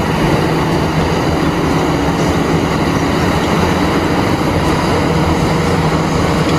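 Caterpillar 6015B hydraulic mining excavator working, its engine and hydraulics running in a loud, steady drone as it digs rock and swings to load a dump truck.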